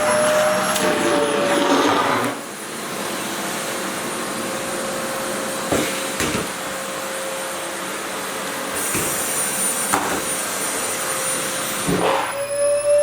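Sharp EC-KP7F-A vacuum cleaner running with a steady whine, sucking at a skirt's fabric. Its sound drops and turns duller about two seconds in, with a few light knocks, and grows louder and rougher again near the end.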